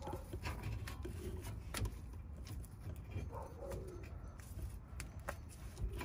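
A pigeon cooing faintly a couple of times over a low outdoor rumble, with a few light metallic clicks from the brake caliper being handled and seated over the pads.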